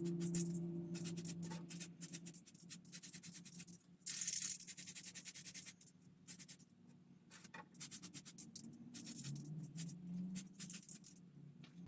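Small clicks and taps of parts being handled, with one short hiss of spray paint about four seconds in, lasting under two seconds.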